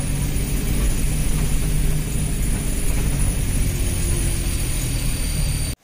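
Bus engine and road noise heard from inside the passenger cabin: a steady low drone that cuts off suddenly near the end.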